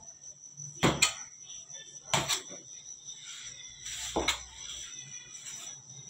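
Metal bench scraper chopping through bread dough and striking a stainless-steel worktable: sharp metallic knocks, a quick double knock about a second in, then single knocks a little past two seconds and past four seconds.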